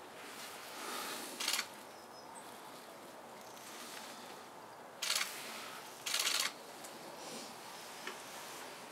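Camera shutters firing in three short bursts: a brief one about a second and a half in, another about five seconds in, and a longer rattling run just after, over faint outdoor background noise.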